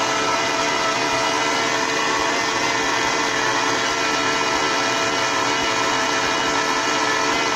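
Scalextric RX-41 slot-car motor running flat out while submerged in alcohol inside a closed plastic box, a steady whine over a hiss at an even speed. It is being run at full power so that the spinning armature flushes carbon, grease and lint out into the alcohol.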